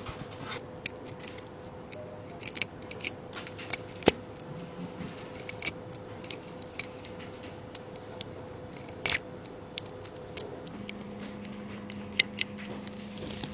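Scattered small, sharp clicks and taps of hand tools working on a phone, over a faint steady hum. A second, lower steady hum starts near the end.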